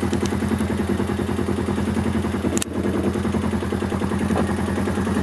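Can-Am 450 ATV's single-cylinder engine running steadily at low speed with a rapid, even pulse. A brief sharp click about two and a half seconds in.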